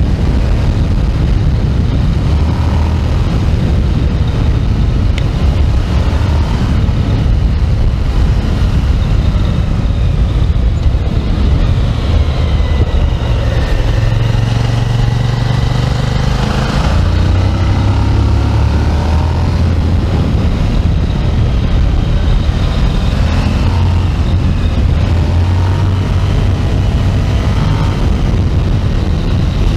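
Suzuki SV1000S motorcycle's 90-degree V-twin engine running under way, its revs rising and falling several times as it accelerates and changes gear.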